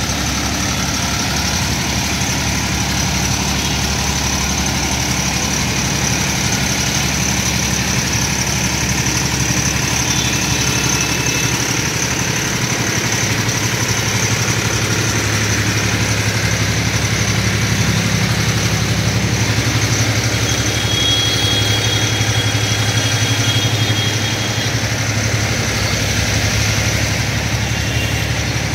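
A vehicle engine runs steadily at low speed while driving through street floodwater, with a constant hiss of water. The engine note rises slightly about halfway through.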